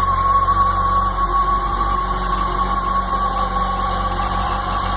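Motorcycle engine idling steadily just after a cold-stored start, with a steady high tone running over the rumble.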